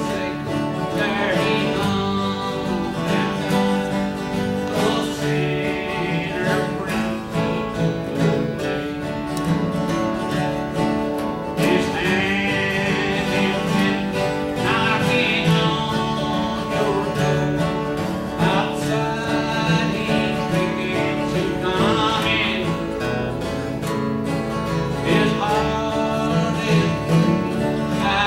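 A man singing while playing an acoustic guitar: a sung song with steady guitar accompaniment.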